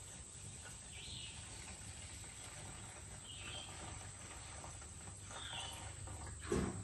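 Quiet outdoor background: a steady faint insect hum with three short bird chirps about two seconds apart.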